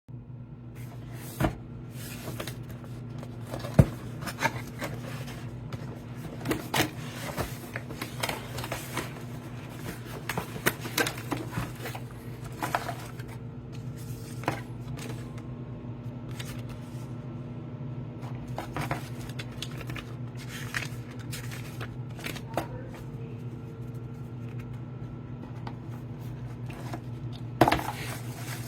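Irregular light clicks and taps, like small objects being handled, over a steady low hum.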